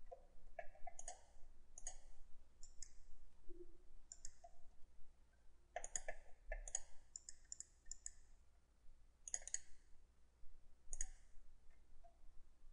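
Computer mouse clicking faintly: scattered single clicks at irregular intervals, some in quick pairs and short runs.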